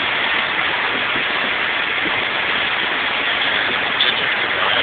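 Steady road and wind noise heard inside the cabin of a twin-turbo Subaru Impreza driving at road speed, an even hiss with no distinct engine note.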